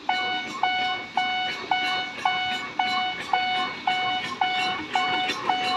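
Japanese railroad crossing warning bell ringing its steady "kan-kan" at just under two strokes a second, signalling that a train is coming or passing.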